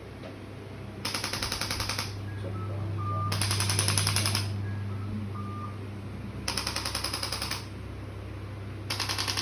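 Rapid mechanical rattling, about ten strokes a second, coming in four bursts of about a second each, over a steady low hum.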